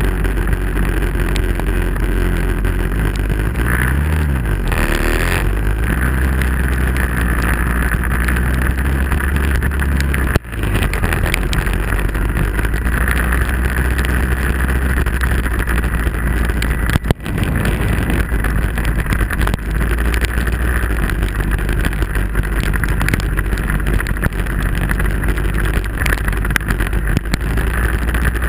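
Lotus 61 Formula Ford's Ford Kent four-cylinder engine running steadily under the car, with the hiss of tyres throwing spray off a soaking wet road. The sound drops out for an instant twice.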